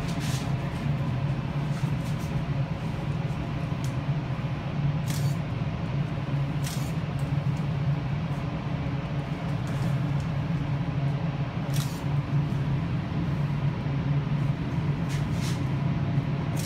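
Wind tunnel fans running steadily: a continuous low drone with air rushing past the car, and a few short, high ticks scattered through it.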